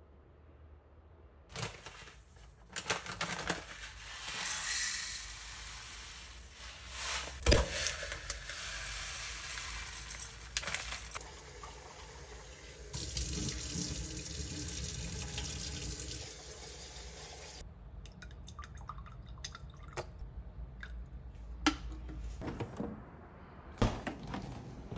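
Water running, as from a tap into a sink, with scattered clicks and knocks. A sharp knock about seven seconds in is the loudest moment, and the flow is heavier around the middle.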